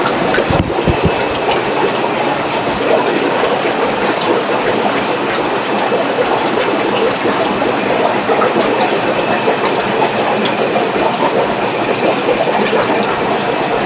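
Steady rushing noise of aquarium aeration: air bubbling up through sponge filters in the fish tanks, with the air pumps running. A brief low bump comes about half a second in.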